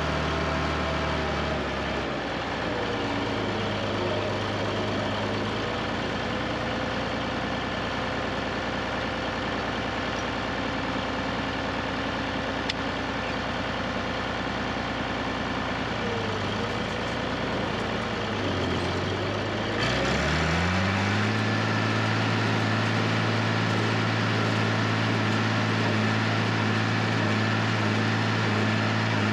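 Tractor engine running steadily; its pitch dips about 18 seconds in, then it revs up to a higher, louder steady speed about 20 seconds in.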